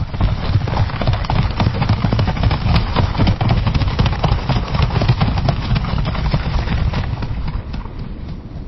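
Horse galloping on a dirt path: rapid, dense hoofbeats with heavy low thuds, easing off a little near the end.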